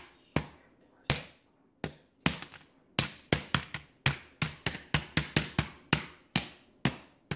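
Handheld knife sharpener striking a set sheet of hard cinnamon candy in a metal pan, cracking it into pieces: an irregular run of sharp taps and cracks that come faster after the first couple of seconds.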